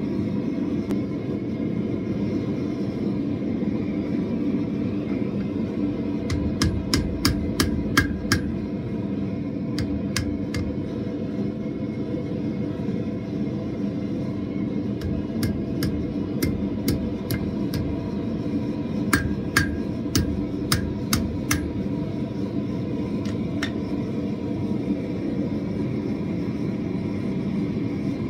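Hand hammer striking red-hot steel on an anvil in quick runs of about half a dozen blows, roughly four a second, with pauses between runs. Under it runs the steady noise of a propane gas forge burner.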